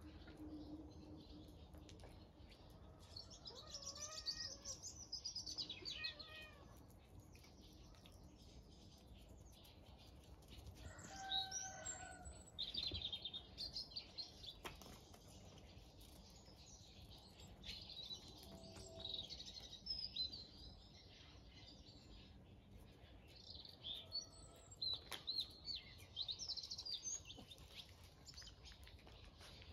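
Birds chirping and singing in several short bursts, faint, over quiet outdoor background noise.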